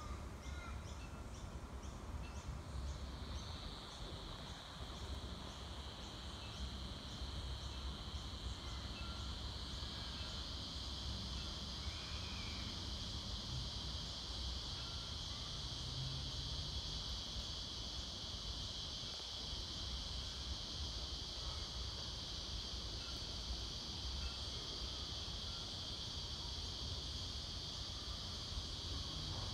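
Insects calling: a high ticking pulse gives way about three seconds in to a steady high-pitched drone that swells around ten seconds in, over a low outdoor rumble.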